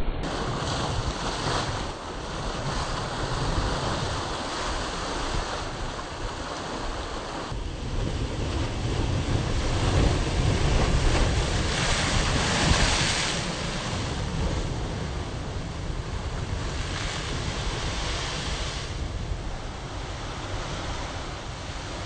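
Ocean waves breaking and crashing against rock ledges, a continuous surging wash of surf and spray that swells loudest about halfway through. Wind buffets the microphone, adding a low rumble.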